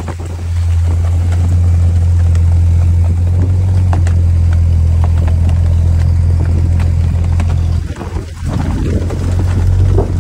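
Lifted Jeep's engine running steadily under load as it crawls up a steep slickrock slope. The drone dips briefly about eight seconds in and then picks up again, with a few faint clicks over it.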